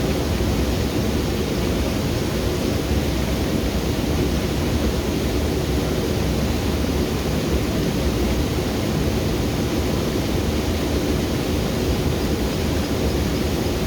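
Waterfall cascade rushing steadily: a dense, even noise of falling water, strongest in the low end.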